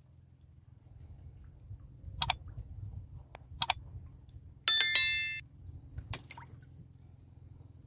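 Sound effects of a subscribe-button animation: a quick double mouse click about two seconds in, another about a second and a half later, then a bright notification bell chime that rings for about half a second and is the loudest sound. A faint low hum runs underneath.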